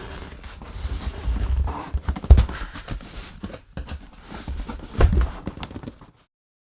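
Cardboard packaging being handled as an inner box is pulled out of its outer box: rustling and scraping with scattered knocks, the loudest thumps about two seconds in and again about five seconds in. The sound cuts off suddenly near the end.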